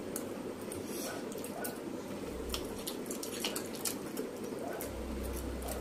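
Faint eating sounds: sparse small clicks of forks against plates and wet mouth sounds of noodles being chewed, over steady room hiss.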